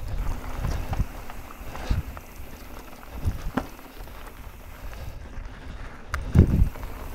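Mountain bike rolling over rocky dirt singletrack: tyres and frame knock and rattle over rocks, the loudest jolt about six and a half seconds in, over the rumble of wind on the microphone.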